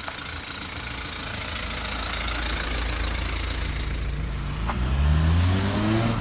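A car passing close on the road, its engine rumble building as it approaches and its note rising as it speeds up, loudest near the end.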